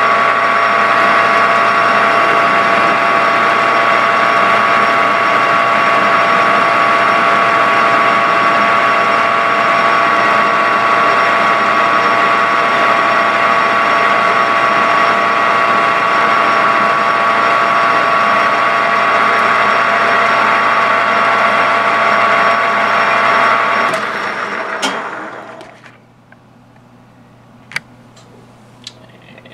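Metal lathe running while a parting tool cuts off a small turned piston: a steady machining whine with several held tones. It winds down and stops about 25 seconds in, followed by a few light clicks.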